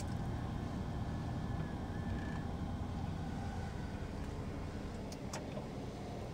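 The power-folding side mirrors of a 2020 Perodua Aruz whir briefly as their electric motors fold them in. Under them is a steady low hum in the car's cabin, and two light clicks come near the end.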